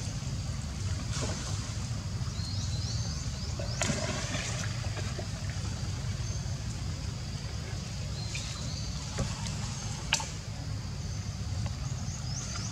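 Water splashing and trickling as a macaque paws at and wades through shallow pond water, with sharper splashes about four and ten seconds in. A steady low rumble runs underneath, with a few short high chirps.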